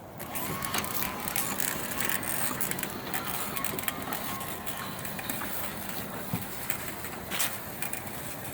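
Electric drive of a homemade battery-powered remote-control lawnmower running steadily, a dense mechanical noise with scattered clicks and a faint steady whine.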